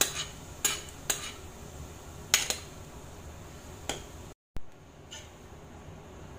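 Steel ladle clinking against a metal cooking pan while thin cooked toor dal is stirred into cooked fenugreek leaves. There is a handful of sharp clinks at first, then a brief cut in the sound about four and a half seconds in, followed by a few fainter clinks.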